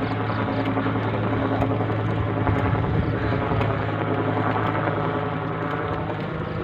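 A motor vehicle engine running steadily at low speed, a continuous even hum.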